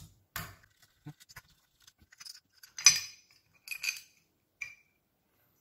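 Light metal clicks and scrapes of a hex key unscrewing the two screws that hold the scope rail on an air rifle's receiver, with a sharper clink about three seconds in and a few brief high-pitched squeaks.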